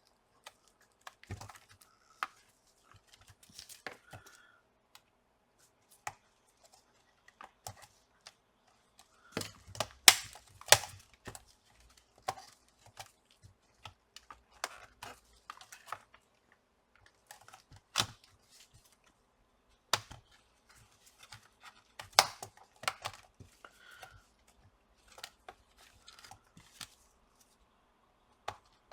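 Plastic laptop case being pried apart: scattered sharp clicks and snaps of the case's clips letting go, the loudest cluster about ten seconds in, with light scraping and tearing where double-sided adhesive holds the parts together.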